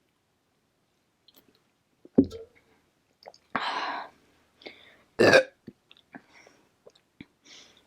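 A woman's short, loud burp about five seconds in, after a swig of A&W root beer, with a sharp sound about two seconds in and a breathy exhale a second before the burp.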